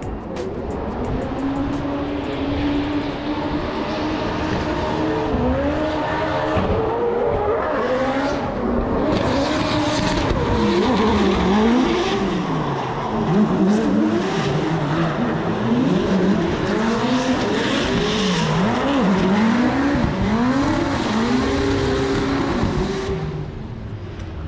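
Formula Drift cars on a drift run: the engines rev up and down over and over, the pitch swinging about once a second, with tyre screech from the sliding tyres.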